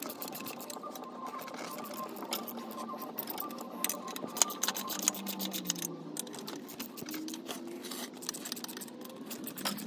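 Socket ratchet clicking in a fast, dense run, sped up fourfold, as exhaust manifold bolts are backed out, with faint gliding tones underneath.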